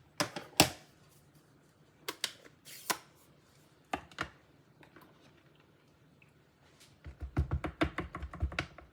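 Papercrafting supplies handled on a desk: scattered clicks and taps in the first half, then a quick run of light taps over the last two seconds.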